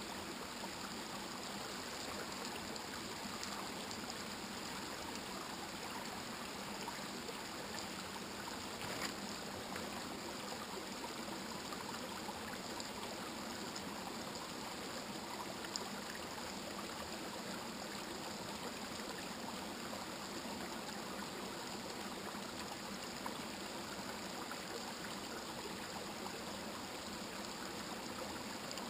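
A small rocky river flowing over stones, a steady rush of water, with a couple of faint clicks.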